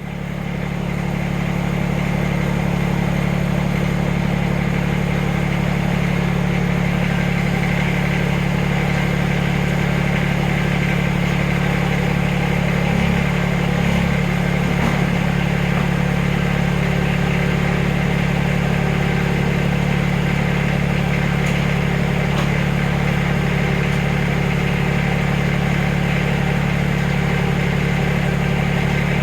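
Backhoe engine running steadily at an even idle, with a constant low hum.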